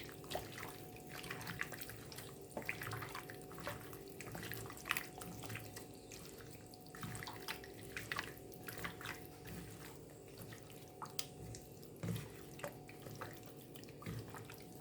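Chicken wings and pork chops being mixed by hand with wet seasoning and dark soy sauce in a bowl: irregular soft, wet squelches and clicks over a faint steady hum.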